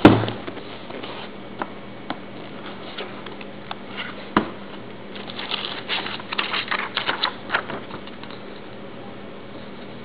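A cardboard shoebox set down with a sharp knock, another lighter knock about four seconds in, then tissue paper inside the box rustled and crinkled by hand for a couple of seconds.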